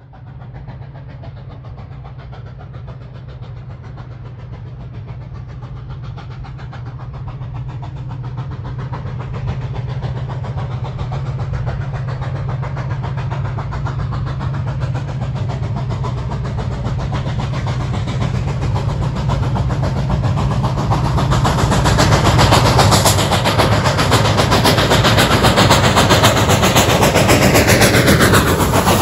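Steam locomotive approaching under power, its sound growing steadily louder as it comes close, over a steady low rumble. Near the end, as it draws level, the pitch falls.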